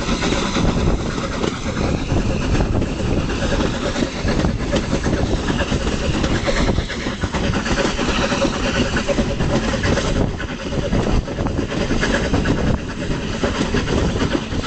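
Steam-hauled passenger train climbing, heard from an open carriage window: a steady running din of wheels on the rails with scattered short knocks, and wind buffeting the microphone.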